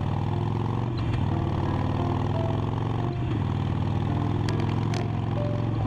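Motorcycle engine running steadily at an even pace while the bike is ridden, picked up by a camera mounted on its handlebars.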